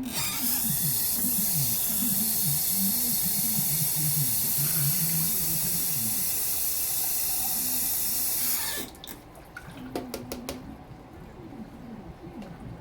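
Water tap running steadily for about nine seconds, then shut off abruptly, followed by a few sharp clicks.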